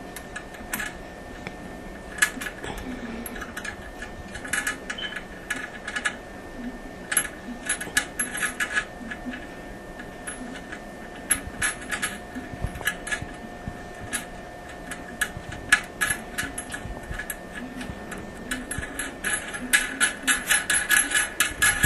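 Metal clinks and clicks of toilet tank-to-bowl bolts, washers and nuts being handled and threaded on under the tank, with a fast run of clicks near the end.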